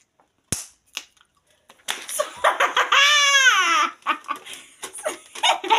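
A girl laughing loudly, rising into a long high-pitched shriek of laughter about three seconds in, then breaking into choppy giggles. A single sharp tap sounds about half a second in.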